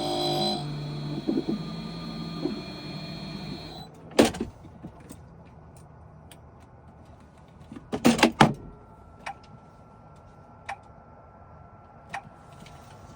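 Key-cutting machine's motor hum dying away over the first few seconds, then sharp metallic clicks and a short clatter as the freshly cut key is handled, with single ticks after.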